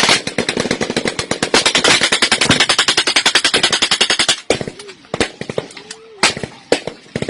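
Automatic gunfire: a long, rapid full-auto burst that stops about four and a half seconds in, followed by several separate single shots.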